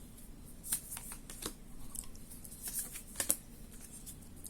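Lenormand fortune-telling cards being handled and laid down on a table: a handful of soft flicks and slaps, the sharpest a little past three seconds in.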